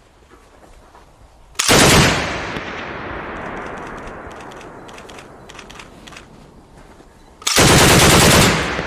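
DShK 12.7 mm heavy machine gun firing two short bursts about six seconds apart. Each burst trails off in a long echo that dies away slowly.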